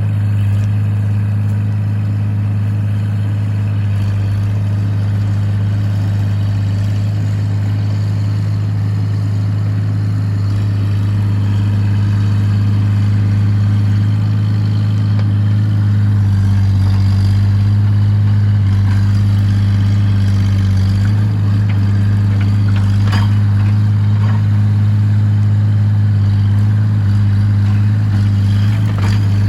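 Excavator engine running steadily with a deep, even hum, its pitch shifting slightly as it works. A few brief knocks late on.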